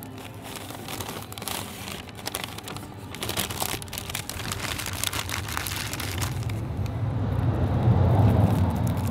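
Greaseproof paper wrapping of a doner kebab crinkling and rustling as it is handled and peeled open. Near the end a low engine rumble from a passing road vehicle swells and fades, becoming the loudest sound.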